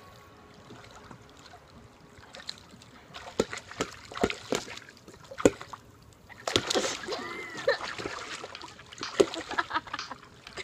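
Pool water splashing and slapping as swimmers move and catch a ball, with several sharp splashes. A girl's voice calls out briefly about two-thirds of the way through.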